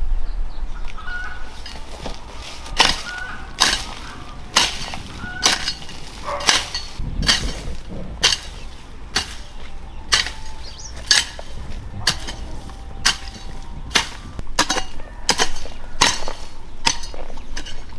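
Hand hoe chopping into soil and weeds, a sharp strike about once a second after the first few seconds.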